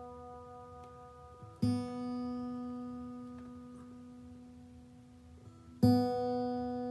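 A guitar's open B string is plucked twice, about four seconds apart, and each time it is left to ring and slowly die away while it is checked against an electronic tuner.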